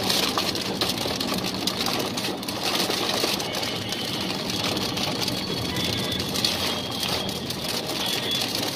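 Heavy rain drumming on the roof and windshield of a moving car, heard from inside the cabin as a dense, rapid patter over the steady hum of the car.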